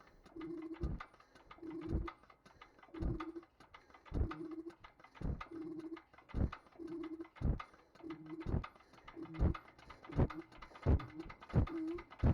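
Petter AS stationary engine being turned over by hand to check the magneto spark. It makes a regular cycle of a short hum-like tone and a sharp click, about once a second, coming quicker near the end. The spark is intermittent.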